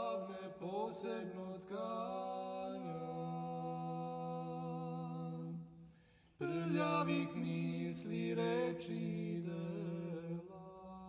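Unaccompanied vocal singing of long, held notes. It breaks off briefly about six seconds in, then resumes.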